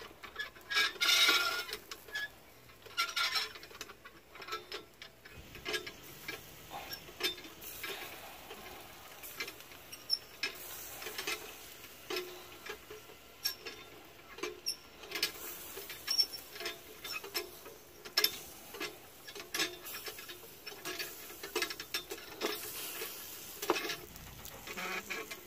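Irregular clicks and light crackling from a whole chicken spit-roasting over glowing charcoal.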